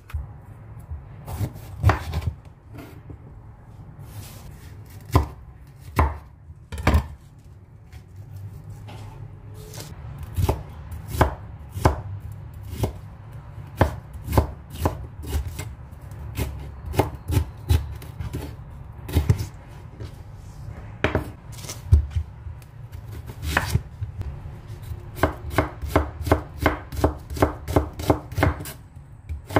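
Kitchen knife slicing bell pepper and onion on a wooden cutting board: irregular knocks of the blade against the board, quickening near the end to an even run of about three or four cuts a second.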